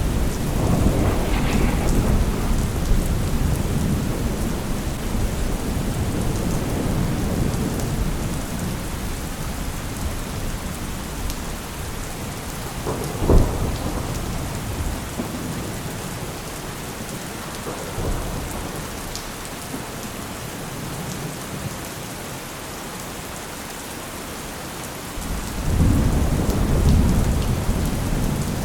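Steady rain hissing under rolling thunder. A long rumble fades over the first ten seconds or so, then a sharp thunderclap comes about thirteen seconds in, with a smaller one a few seconds later. Near the end a fresh rumble swells up.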